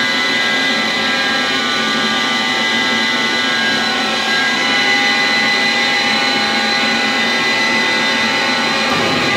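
Electric guitar played through heavy effects, sounding as a loud, steady drone of many sustained tones over a dense noisy wash. A new held tone comes in about four seconds in.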